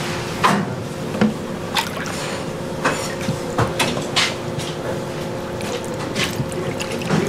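Wet kitchen handling sounds from working raw salmon: irregular squelches and short sharp knocks, the loudest about half a second and a second and a quarter in. They sit over a steady electrical hum.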